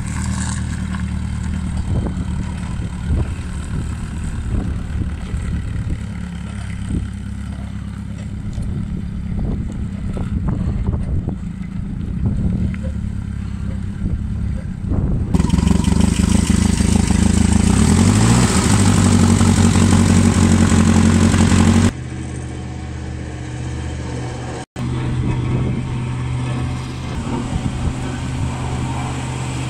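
Datsun 35.5 hp LP-gas forklift engine running, first at low, even revs as the forklift drives over gravel. About halfway through it revs up, much louder, its pitch rising and then holding for several seconds. It then drops suddenly back to a steady idle.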